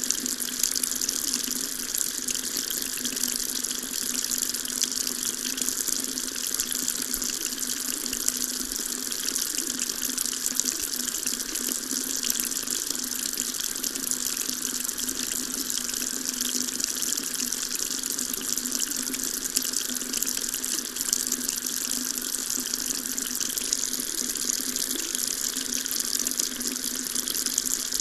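Water tap running steadily, a continuous stream splashing into a sink.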